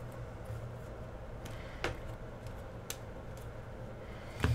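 Trading cards being thumbed through one at a time, giving a few faint clicks and slides over a steady low hum.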